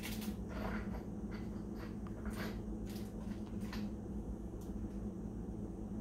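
Steady low hum of room tone with faint, scattered rustles and light clicks.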